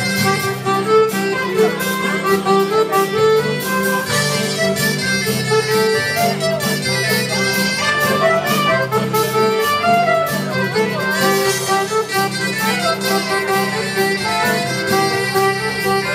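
Live band playing a Breton fest-noz dance tune: button accordion, saxophone and a reedy lead over acoustic and electric guitars and a steady bass, at an even dance tempo.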